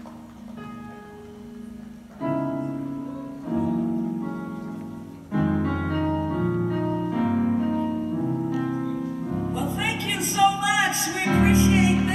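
Gospel church band keyboard playing held chords, growing louder in steps over the first five seconds. A singing voice comes in over it near the end.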